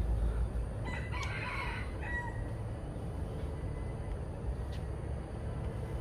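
A rooster crows once, about a second in, for about a second and a half, over a steady low rumble.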